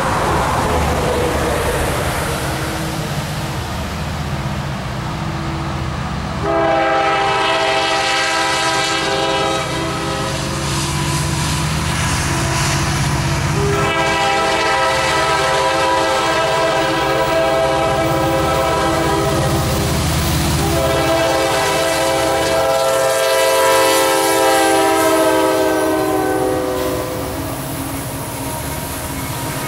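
Norfolk Southern SD60 diesel locomotive's air horn sounding three long blasts as the train approaches, over the low rumble of the train. Near the end, empty coal hopper cars roll past.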